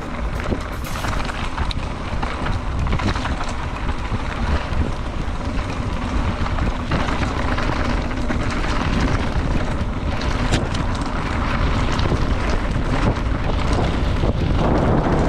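Wind rushing over the microphone of a mountain bike riding dirt singletrack, with tyre noise and scattered knocks and rattles from the bike over bumps. It gets a little louder toward the end.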